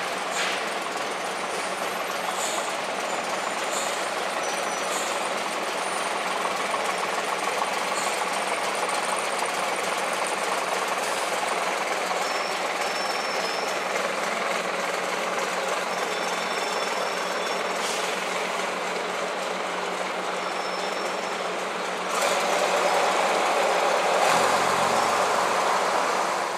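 Vintage single-deck bus's diesel engine running as the bus turns and pulls away, over a steady street noise; the sound grows louder near the end.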